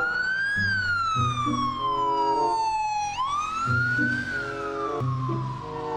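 Wailing siren: each cycle climbs quickly in pitch, then falls slowly over about two and a half seconds, starting again about three seconds in. Music with steady bass notes plays underneath.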